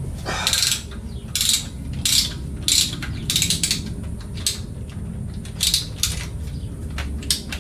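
Ratchet wrench clicking in short bursts, one every half second or so, as bolts are worked loose.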